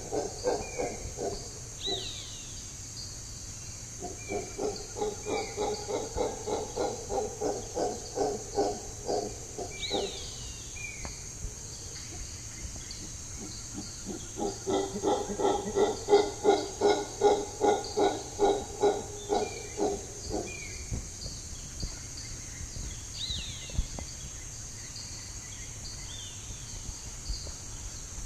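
Mantled howler monkeys howling: deep, rhythmic pulsed calls in two long bouts, each lasting several seconds. Short bird chirps and a steady high insect buzz run underneath.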